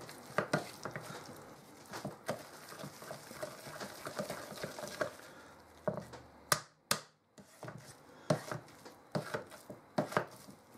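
Potato masher pounding boiled potatoes with milk in a stainless steel saucepan: irregular soft knocks and scrapes of the masher head in the mash and against the pan, with a couple of sharper knocks a little past the middle.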